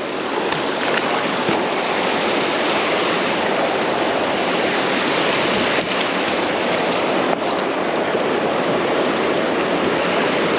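Creek water rushing loudly and steadily, a close, even roar of moving water that swells a little in the first second.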